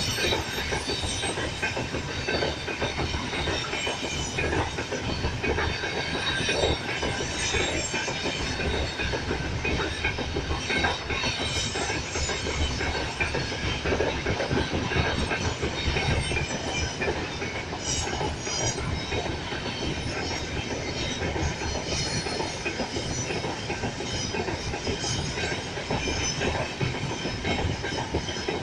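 Freight train passing close by: a steady rumble and clatter of steel wheels on the rails, with thin high wheel squeals now and then.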